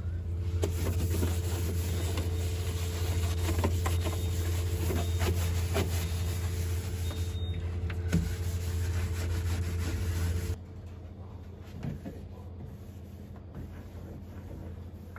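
A household appliance hums steadily, with light clicks and knocks of kitchen handling over it; the hum cuts off abruptly about ten and a half seconds in.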